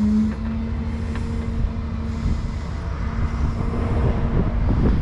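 Bucket lift running with a steady low engine rumble and a steady hydraulic hum as the bucket is raised.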